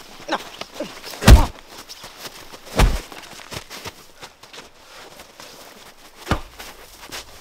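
Heavy thuds of blows in a scuffle: two about a second and a half apart, then a third some three seconds later as a wooden stick is swung.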